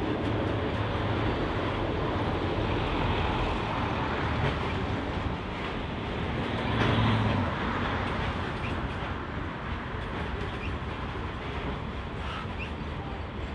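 Grain hopper wagons of a long freight train rolling past, a steady rumble of steel wheels on the rails. It grows louder for a moment about halfway through, then eases off slightly toward the end.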